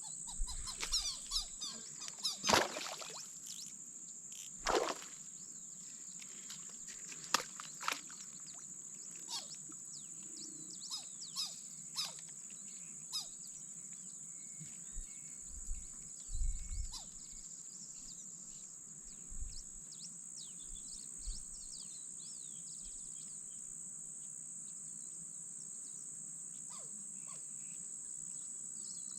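Marshland ambience: a steady high-pitched insect drone with birds chirping now and then. A few sharp clicks and knocks stand out in the first eight seconds, the loudest about two and a half seconds in.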